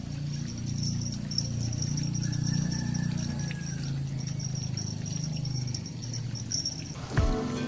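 Insects chirring steadily in a high, pulsing trill over a low outdoor rumble. Music starts near the end.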